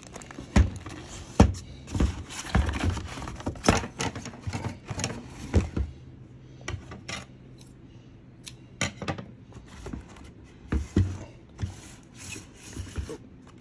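Packaging and toy parts being handled during an unboxing: irregular clicks, taps and rubbing, busy for the first half and sparser after that.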